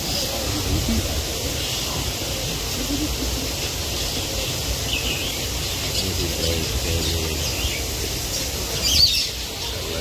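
Assorted birds chirping and calling, short high calls scattered throughout, the loudest a sharp burst of chirps about nine seconds in.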